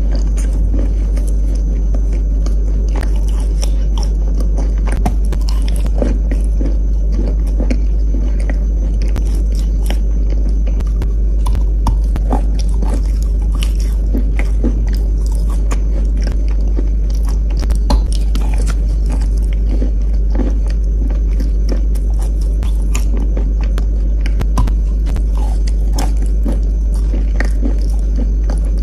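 Biting and chewing of soaked soft chalk: many small, irregular crunches and crumbly clicks, over a steady low hum.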